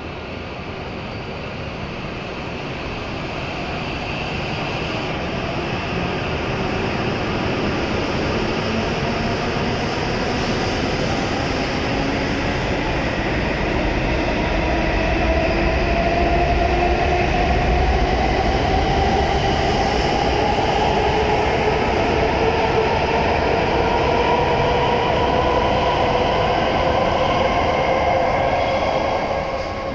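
E7-series Hokuriku Shinkansen train pulling out of the station: its traction motors whine in several slowly rising tones over a rumble as it gathers speed, growing louder, then the sound falls away near the end as the last car passes.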